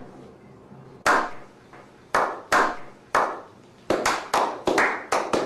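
A slow clap by a small group: single hand claps, each with a short echoing tail, about a second apart at first, then quickening and overlapping as more hands join in.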